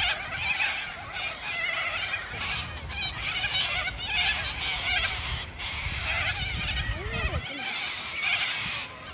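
A flock of white cockatoos calling with harsh, overlapping screeches.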